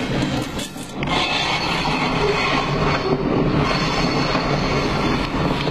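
A 1967 Volkswagen Beetle's air-cooled engine running as the car drives, with road noise, heard from inside the cabin.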